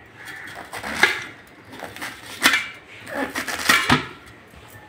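Kitchen knife cutting taro stalks into pieces on a stainless steel plate, the blade knocking sharply against the steel several times.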